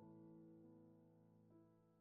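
Soft background piano music: slowly decaying sustained chords, with a new note entering about halfway through.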